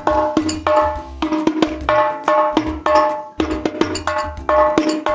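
A 30 cm hadroh rebana frame drum with a goatskin head, played by hand in a steady rhythmic pattern. Its ringing open strokes are mixed with sharper slaps. It is being played as a sound check of the new drum's tuning.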